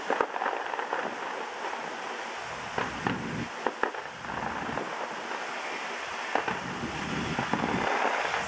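Fireworks bursting: scattered single pops and bangs, some in quick clusters of two or three, over a steady background rush.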